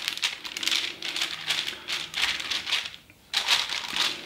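Baking paper crinkling and rustling as hands press and smooth it flat over a stainless-steel tray, in short irregular bursts with a brief pause about three seconds in.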